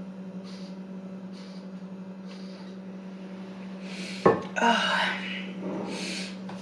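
Someone drinking water in steady gulps, about one a second, then a sharp knock a little past four seconds, like a bottle set down on a wooden table, followed by breathy exhales. A low steady hum runs underneath.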